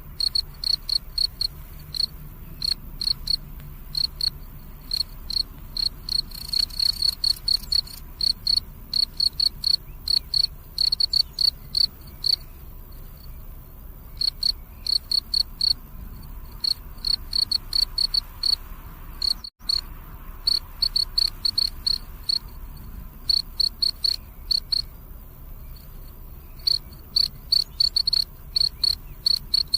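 Crickets chirping at night: a steady run of short, high-pitched chirps repeated several times a second, thinning out for a few seconds now and then. The sound cuts out for an instant about twenty seconds in.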